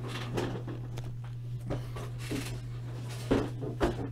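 Cardboard boxes of trading cards being handled and moved aside: scattered soft knocks and rustles, with two sharper knocks near the end, over a steady low hum.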